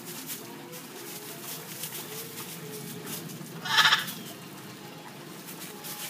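Amazon parrot giving one short, harsh squawk about four seconds in.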